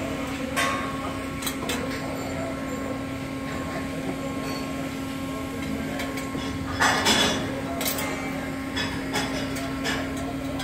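Steady industrial machinery hum with a constant low tone, broken by scattered knocks and clicks and a brief, louder clatter about seven seconds in.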